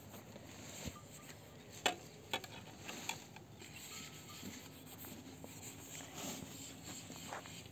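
Faint clinks and knocks of metal pots and bowls being handled, a few scattered strikes, the loudest about two seconds in, over a faint steady background.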